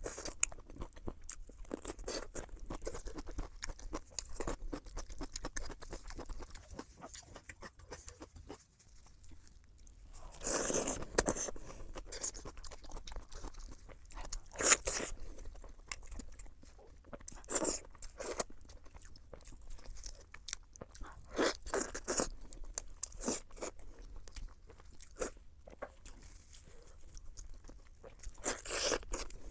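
Close-miked mouth eating sounds: steady chewing of sweet pork in spicy chili sauce with wet clicks, broken by several louder crunchy bites.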